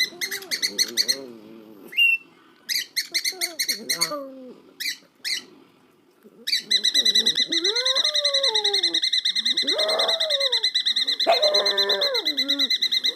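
A pet parrot mimicking a phone's trilling ring: short bursts of ringing in the first half, then one long continuous ring from about six and a half seconds in, with lower warbling bird calls underneath.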